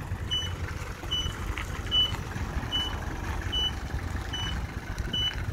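A 1992 Nissan Atlas small fire truck's reversing alarm beeping evenly, about seven short high beeps, one every 0.8 seconds, over the truck's low engine running as it backs up.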